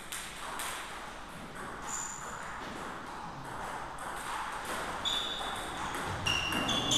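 Table tennis ball clicking off rackets and the table in quick succession during a rally. A few short high squeaks are heard near the middle and toward the end.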